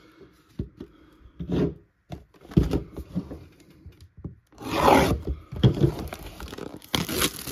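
Scratchy rubbing and sliding of trading cards and a cardboard card box being handled, then a knife blade scraping and cutting at the box, loudest a little under five seconds in and continuing as scratching after that.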